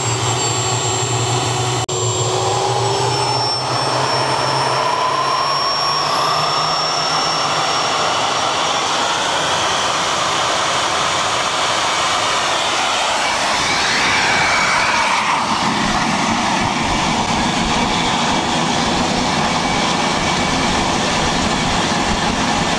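TS-21 turbostarter gas turbine, run as a small turbojet, running at high power with a steady jet roar. A whine over the roar rises in pitch over the first ten seconds or so, and the low rumble grows in the second half.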